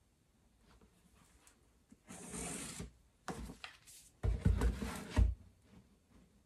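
Rubbing and scraping of a plastic duct board marking tool being slid and repositioned on foil-faced fiberglass duct board while lines are marked, starting about two seconds in, with a couple of dull knocks near the end.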